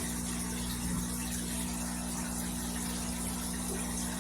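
Aquarium pumps and filtration in a fish room running: a steady hum with a constant hiss of moving water and air.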